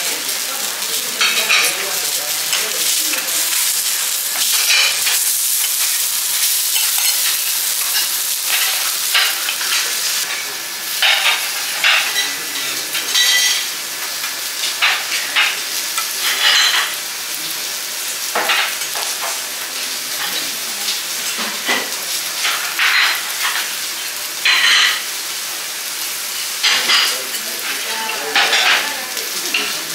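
A fish fillet sizzling steadily on a hot teppanyaki steel griddle, with many short scrapes and taps of a metal spatula against the steel plate.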